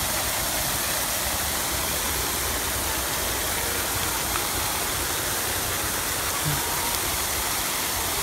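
Rows of fountain jets arcing over and splashing steadily into a shallow pool: an even, continuous rush of falling water.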